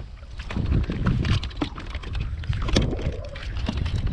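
Wind rumbling on the microphone, with water splashing and many small knocks as a hooked speckled trout is pulled alongside a kayak and grabbed by hand.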